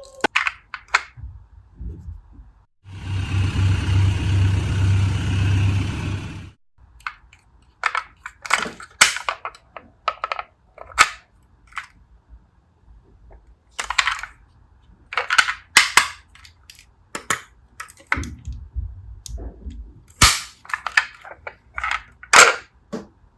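Plastic toy ambulance being handled: a steady whirring rattle for about four seconds, starting about three seconds in, then a long series of short, sharp plastic clicks and knocks at uneven intervals.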